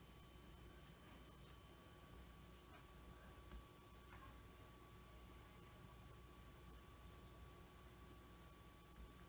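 A cricket chirping steadily, short high chirps about two and a half times a second.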